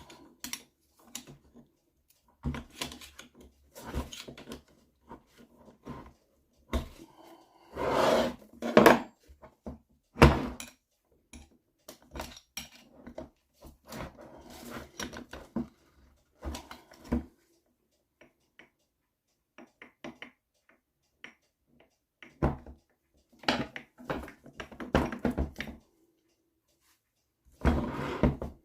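Hand tools clinking, scraping and knocking on the metal parts of an NSU Quickly two-speed moped engine as it is taken apart. The knocks come in irregular bursts, with the sharpest strikes about a third of the way in and again near the end.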